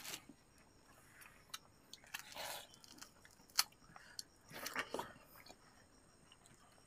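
Biting and wet chewing of ripe watermelon slices, heard as a few separate short bursts a second or two apart, with one sharp click near the middle.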